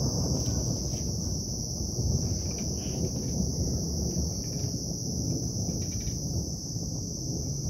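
Crickets trilling steadily at night, over a continuous low rumbling haze.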